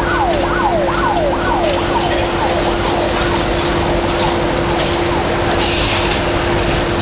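Demolition excavator working, with a steady engine and hydraulic drone and the noise of concrete and debris breaking. An emergency-vehicle siren's quick, repeated falling sweeps sound over it and fade away about five seconds in.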